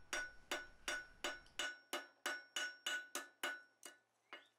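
Blacksmith's hammer striking thin hot 4140 steel stock on the anvil face, about three blows a second, each with a bright ringing note. The stem of the corkscrew is being dressed and taken to round. The blows stop near the end.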